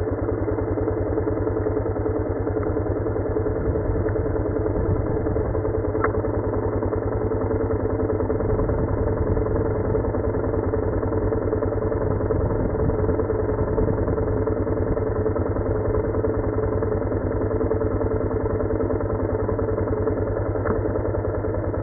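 Suzuki DR-Z400's single-cylinder four-stroke engine idling steadily, its firing pulses even and unchanging.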